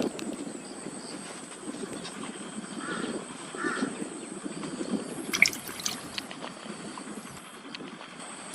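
A bird gives two short harsh calls, about three and three and a half seconds in, over steady outdoor background noise. There is a sharp click about five and a half seconds in.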